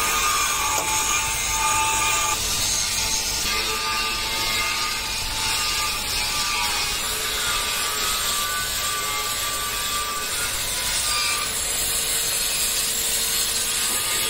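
Oxy-fuel cutting torch hissing steadily as its flame and oxygen jet cut through the steel side rail of a truck chassis.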